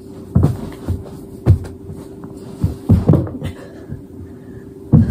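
A series of dull thumps of socked feet and then a body hitting a carpeted floor as a person stumbles and falls onto his back, with a cluster of thumps about three seconds in. A faint steady hum runs underneath.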